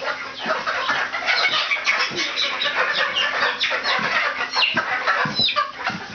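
A brood of young chickens peeping rapidly, many short high calls, mostly falling in pitch, overlapping one another.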